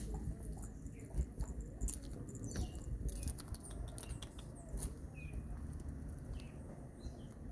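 Faint short bird chirps every second or two over scattered rustling and clicking and a low steady rumble.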